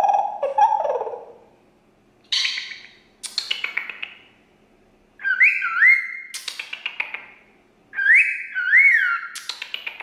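Cockatiel whistling and chattering: bursts of clicky chirps, then two whistled phrases that swoop up and down like a wolf whistle, each followed by rapid clicks. A lower held note tails off and falls in the first second.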